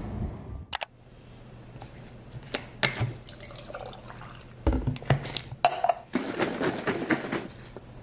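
Cold brew coffee poured from a bottle over ice cubes in a glass jar, with sharp clinks of ice and glass. In the last couple of seconds, liquid is poured from a carton into a second glass.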